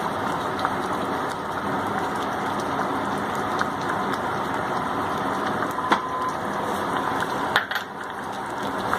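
Pan of chicken korma gravy, with cream and cashew nut paste just added, sizzling steadily on the heat, with two sharp clicks in the second half.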